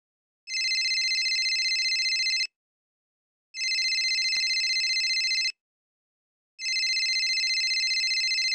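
A telephone ringing: three trilling electronic rings of about two seconds each, a second apart.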